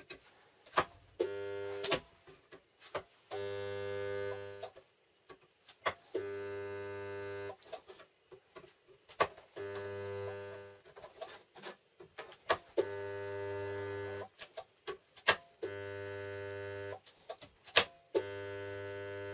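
Homemade timer-controlled spot welder making a series of spot welds on a galvanized steel strip. Its transformer buzzes steadily for about a second and a half on each weld, seven times, with sharp clicks between the welds as the handle is worked and the timer switches the current.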